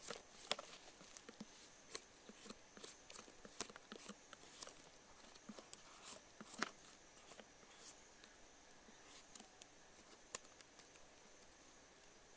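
Knife paring the skin off a whole pumpkin: faint, irregular scrapes and small clicks as the blade cuts away strips of peel.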